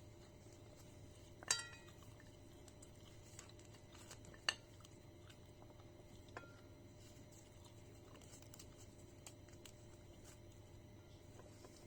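Kitchen utensils and dishes clinking: three sharp knocks, the first and loudest about a second and a half in with a short ring, the others around four and a half and six seconds in.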